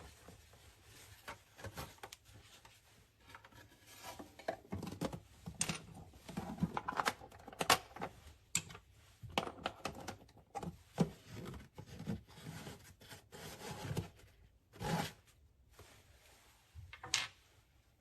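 Irregular handling noises from a plastic paper towel dispenser: short clicks and knocks mixed with rubbing and rustling, sparse at first and busier from about four seconds in.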